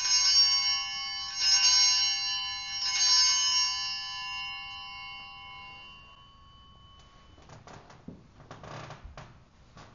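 Altar bells rung three times at the elevation of the chalice, each ring a cluster of high, clear tones that lingers and fades away over a few seconds. Faint knocks and rustling follow near the end.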